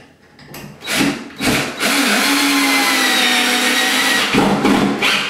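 Power drill driving a screw into a wall anchor: two short trigger pulls, then a steady run of about two and a half seconds, then a few more short bursts near the end.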